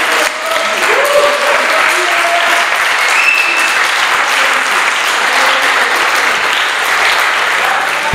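Theatre audience applauding, a dense, steady clapping that holds at the same level throughout.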